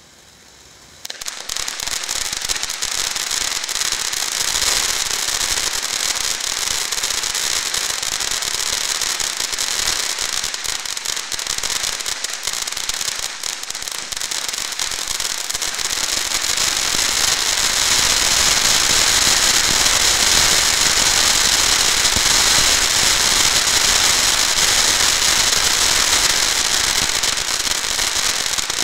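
Black Cat Wild Card firework fountain spraying sparks: a loud, steady hiss thick with fine crackling. It comes on suddenly about a second in and grows a little louder in the second half.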